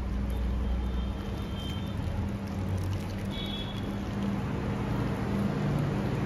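Boiled water poured steadily from a steel pan into a bowl of cauliflower florets, splashing as the bowl fills, over a low steady hum.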